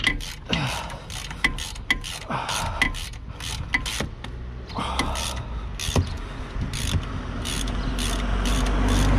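Hand socket ratchet clicking in short, irregular strokes as the top nut of a front anti-roll bar drop link is worked loose.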